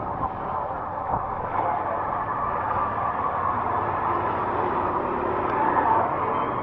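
Steady vehicle and road noise, a constant rumble and hiss without distinct events.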